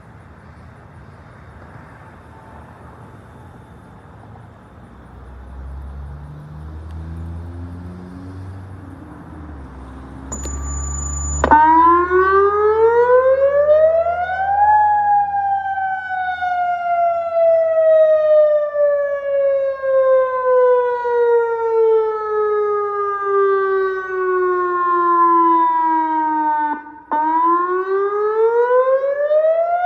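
Outdoor tornado warning siren being tested. After about ten seconds of low rumble and a short high beep, the siren starts, its pitch rising for about three seconds and then falling slowly for about twelve; near the end it breaks off and rises again.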